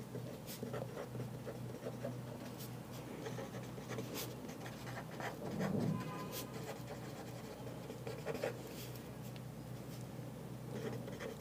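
Fine-tip marker pen writing on paper: faint, irregular short scratches of the pen strokes.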